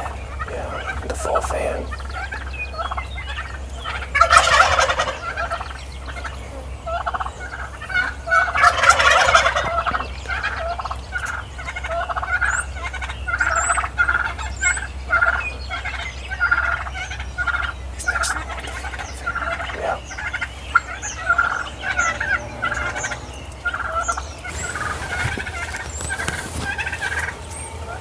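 Wild turkey toms gobbling: long gobbles about four and nine seconds in and another near the end, with a run of short, repeated calls from the flock in between.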